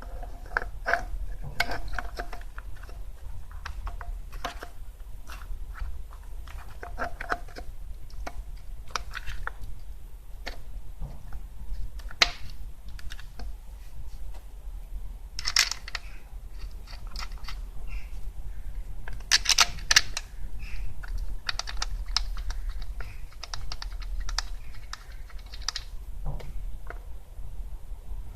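Irregular light clicks and taps of hand tools and metal parts being handled during car repair work, with a few sharper knocks, over a steady low hum.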